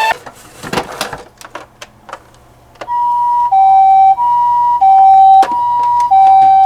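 Toy ambulance's electronic two-tone hi-lo siren, switching back and forth between two pitches about every two-thirds of a second; it starts about three seconds in, after a few faint clicks and taps.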